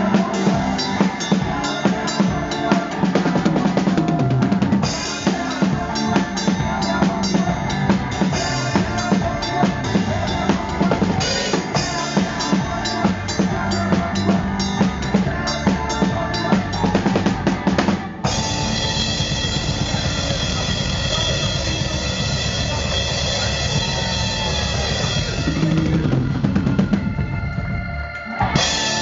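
Band music driven by a full drum kit, with steady kick and snare hits. About two-thirds of the way through the beat stops abruptly and a sustained ringing chord holds for several seconds. The music drops briefly, then starts again right at the end.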